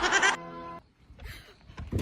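An animal cry, wavering at first and then held steady, lasting under a second and cut off abruptly. Faint clicks and knocks follow near the end.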